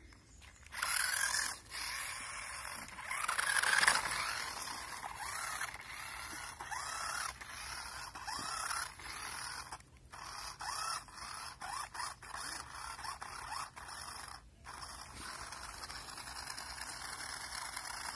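Toy RC climbing car's small electric motor and gears whining in stop-start spurts, the pitch rising and falling with each burst of throttle, with the tyres scraping over dirt and dry leaves. It starts about a second in and breaks off briefly twice.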